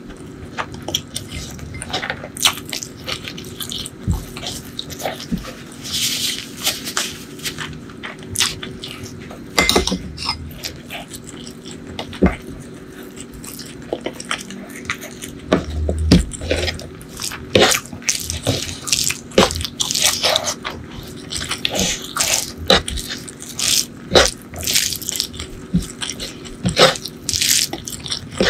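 Close-miked eating sounds: fingers mixing rice and curry, a spoonful of sauce, and chewing and mouth smacks, heard as many short wet clicks.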